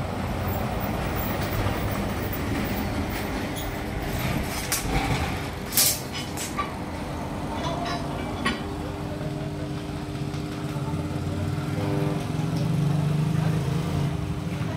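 An engine running steadily with a low rumble that swells about twelve seconds in, with a few sharp clicks and knocks in the middle.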